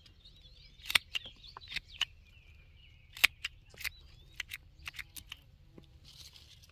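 Pruning shears snipping tomato suckers and leaves: a string of sharp clicks, the loudest about a second in and just after three seconds. Birds chirp in the background.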